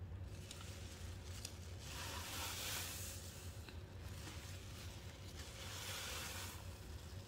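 Wet, soap-loaded sponges squeezed by hand, giving two long squelches about three seconds apart with a few small wet clicks between them. A steady low hum runs underneath.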